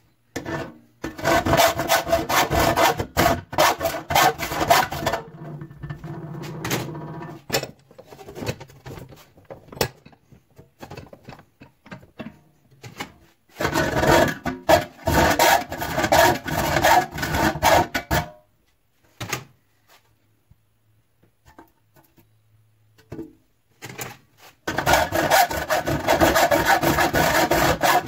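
Saw blade rasping back and forth through the sheet-steel door panel of a clothes dryer. It comes in three bouts of quick, even strokes, each several seconds long, with pauses between.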